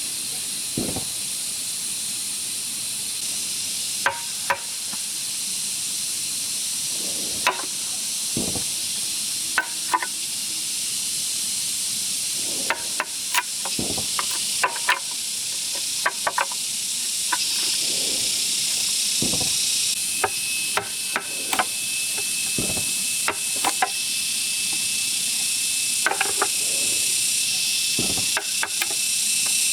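Bamboo being worked: irregular sharp knocks and a handful of dull thuds over a steady high-pitched hiss, with a thin steady whine joining the hiss about two-thirds of the way through.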